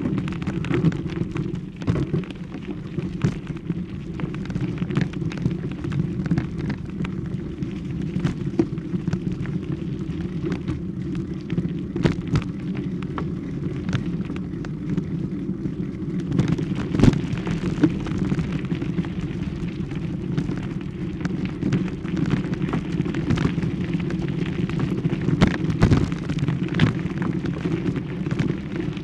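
Steady low rumble of wind and handling noise on a handheld camera's microphone while walking, with irregular crackles and clicks throughout, busiest about halfway through.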